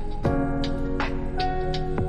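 Background music: held chords over a steady beat, with the chord changing about a quarter of a second in.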